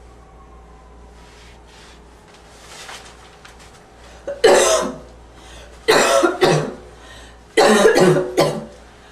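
A person's slight, wheezy barking cough: a few quiet breaths, then from about four seconds in, loud harsh coughs in short fits of one to three.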